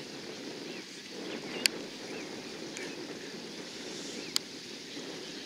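Steady outdoor background noise with a low rumble, broken by two sharp clicks: one about one and a half seconds in and another a little after four seconds. Faint, short high chirps are scattered through it.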